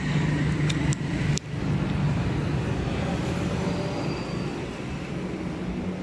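Steady low engine drone, with a couple of sharp clicks about a second in.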